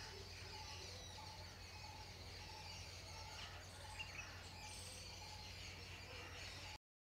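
Faint outdoor ambience: small birds chirping in the distance over a steady low hum, with a short tick about four seconds in. The sound cuts off abruptly near the end.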